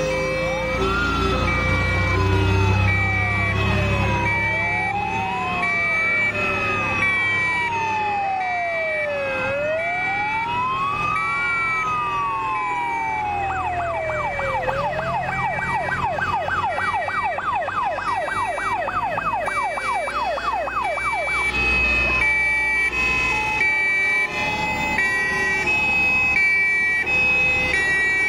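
Several fire-engine sirens sounding at once as a column of fire trucks drives past: a slow rising and falling wail, a fast yelp for several seconds from about halfway through, and two-tone horns alternating high and low throughout. Truck engines rumble underneath, loudest near the start.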